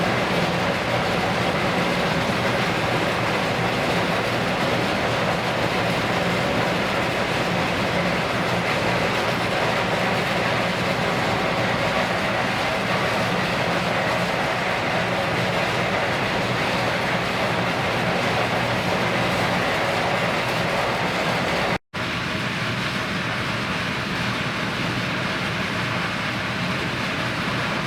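A ship's diesel engine running steadily at slow speed: a continuous low hum under a broad rushing noise. It cuts out for an instant about 22 seconds in, then resumes slightly quieter.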